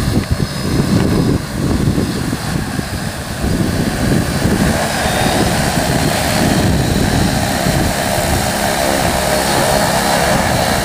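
Large multirotor agricultural spraying drone with 75 cm propellers hovering low and close. A loud, steady propeller hum, uneven for the first few seconds and then even.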